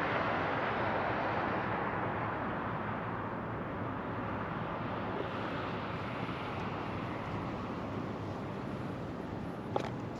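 Road traffic running past on a multi-lane road, a steady rushing hum of tyres and engines. It is loudest at first as a vehicle goes by, then slowly fades. A short sharp click comes near the end.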